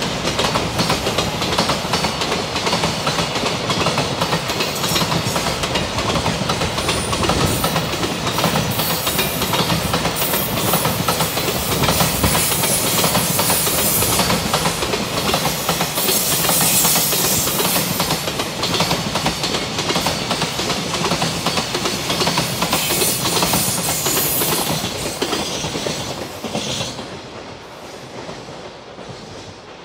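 Container flatcars of a long freight train rolling past close by, a steady clatter of wheels on rail, fading away over the last few seconds as the end of the train goes by.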